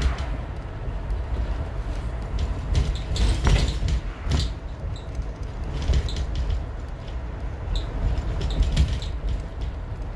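Inside a moving bus: steady low road and engine rumble, with scattered rattles and knocks through the cabin.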